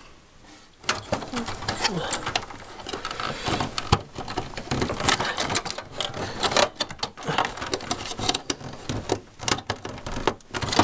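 Irregular clicking and rattling of power-supply cables and plastic connectors being pulled out and handled in a desktop computer case, a quick run of clicks starting about a second in.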